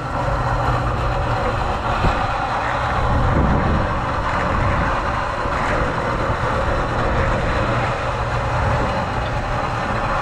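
Machinery running steadily, a motor or engine with an even low hum, and one short knock about two seconds in.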